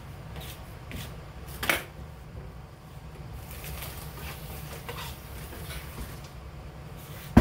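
Light clicks and knocks of kitchen items being handled, with one sharper knock about a second and a half in, over a steady low hum.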